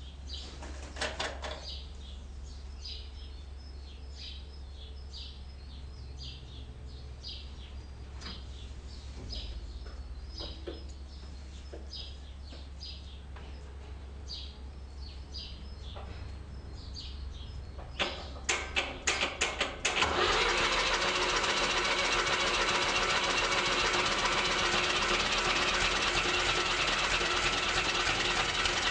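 Universal 445 V diesel tractor cold-started at about 2 °C. After a quiet stretch with faint high chirps, the starter cranks it in a rapid run of strokes about 18 seconds in, and the engine catches about 20 seconds in and keeps running loud and steady.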